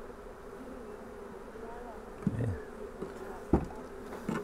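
Many honeybees buzzing around an open hive in a steady, wavering hum. A single sharp knock comes about three and a half seconds in.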